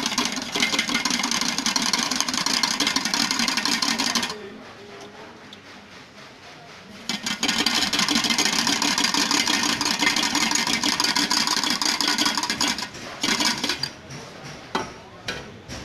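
Motorised sweet-lime (mosambi) juicing machine running as peeled fruit is pressed into it: a steady mechanical whirring and grinding that stops for about three seconds some four seconds in, then starts again. Near the end it comes in short bursts, followed by a few sharp clicks.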